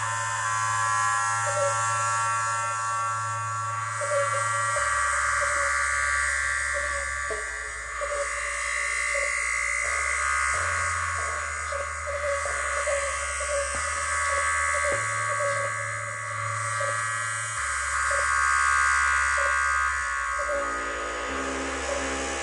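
Eurorack modular synthesizer patch droning: a low bass note that jumps to a new pitch every few seconds, under a steady buzzing tone.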